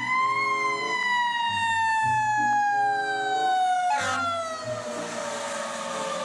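Emergency-vehicle siren wailing: one sweep that rises and then glides slowly and steadily down in pitch. A short knock is heard about four seconds in, and faint low notes sound underneath.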